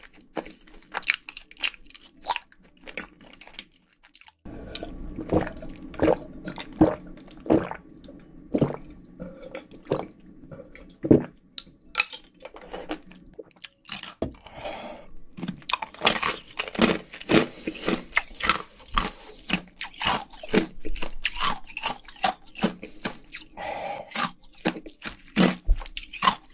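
Close-miked chewing of fried food: irregular crisp crunches and chewing sounds, with short pauses between bites.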